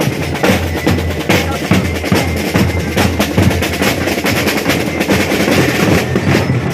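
Marching drumline playing: snare drums, multi-tenor drums and bass drums beating a fast, continuous cadence with rolls.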